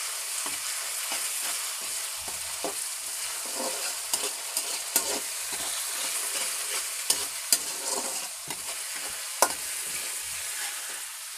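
Onions and ginger-garlic paste sizzling in hot oil in a kadai while a flat metal spatula stirs them, scraping and knocking against the pan with sharp clicks, a few louder ones in the second half. The paste is being fried until its raw smell cooks off.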